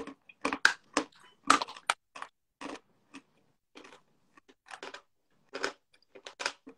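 A person biting into and chewing a piece of edible chalk: a run of crisp, irregular crunches close to the microphone, loudest in the first two seconds.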